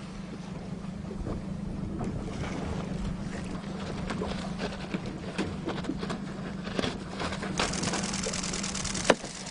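Water rushing and spray hissing as an RS:X windsurf board planes past close by, building and loudest near the end, over the steady drone of a boat engine. A single sharp knock comes about nine seconds in.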